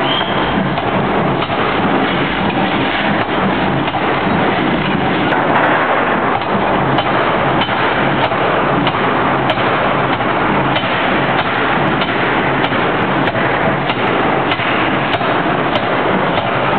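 Pneumatic forging hammer striking a red-hot steel workpiece: sharp knocks about once a second over a loud, continuous shop din.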